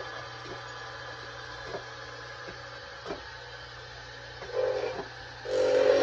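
Belt-driven wood lathe running with a steady hum and faint ticking. Near the end a turned wooden molinillo is pressed by hand against a small wheel spinning on the spindle, making a loud grinding buzz twice, first briefly and then for longer.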